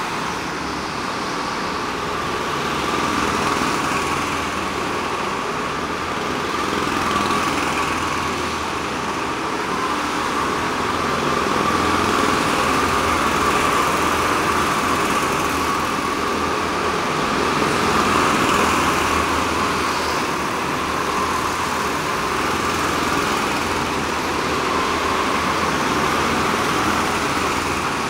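Several go-kart engines running together as the karts race around an indoor track inside a large hall. The engine buzz is steady and swells and fades every few seconds as karts pass.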